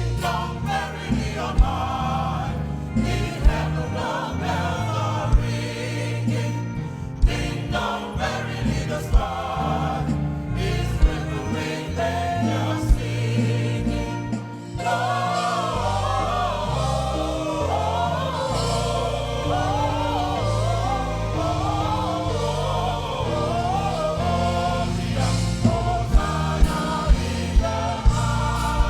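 Gospel choir singing with band accompaniment and a steady beat of drum hits. The voices come in strongly about halfway through.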